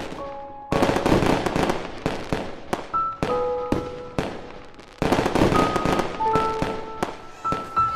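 Fireworks display: aerial shells bursting with dense rapid crackling in two big volleys, about a second in and again about five seconds in, each thinning out into scattered pops.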